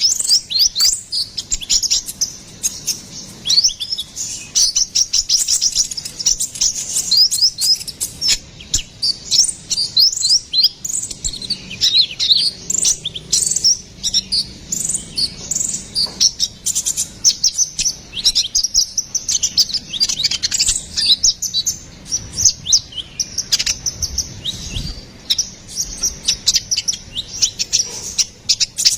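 Konin kolibri ninja (sunbird) song: a continuous stream of rapid, high, sweeping chirps and trills, the notes coming several to a second.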